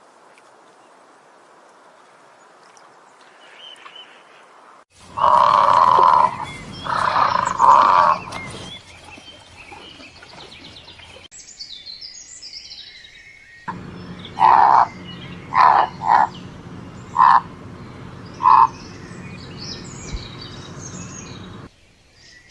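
A series of separate wild animal calls: three loud, drawn-out calls a few seconds in, then, over birds chirping, five short calls evenly spaced.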